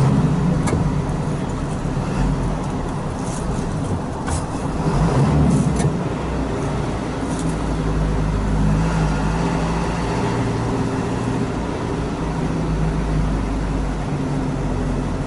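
Steady engine and road noise of a vehicle cruising in traffic, a low engine hum under tyre rumble, with a few faint ticks and a brief swell in loudness about five seconds in.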